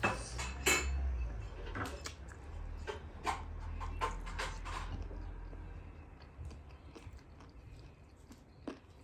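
Close-miked chewing and wet mouth smacks of a person eating chicken by hand, with sharp smacking clicks. They come thick and fast for the first five seconds or so, then more sparsely.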